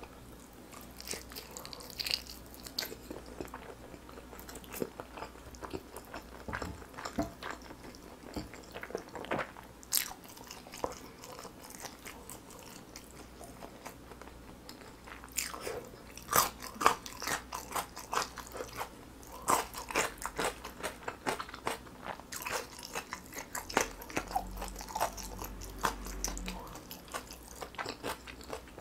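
Close-miked eating sounds: wet chewing and biting into a sauce-glazed grilled chicken drumstick, with crisp crunching from bites of pickled radish cubes. Irregular clicks and smacks throughout, denser and louder about halfway through.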